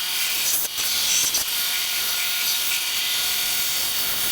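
Electric belt sander running steadily with a wooden spatula blank pressed against the abrasive belt, a constant hiss of sanding wood over the motor's hum.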